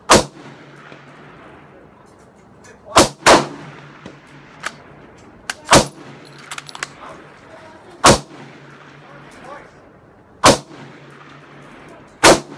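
Rifle shots at a range: the Madsen M47 bolt-action .30-06 rifle firing, mixed with shots from other guns. About seven loud shots are spread over the stretch, two of them only a third of a second apart about three seconds in, with fainter clicks from bolt work in between.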